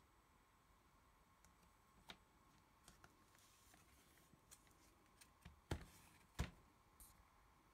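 Near silence broken by a few faint clicks and then two sharper taps in quick succession about two-thirds of the way through: fingers handling a tablet's case and glass.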